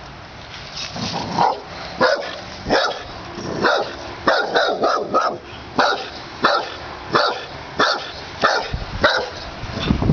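Pit bull barking over and over, short sharp barks coming about every half second to a second, beginning about a second in.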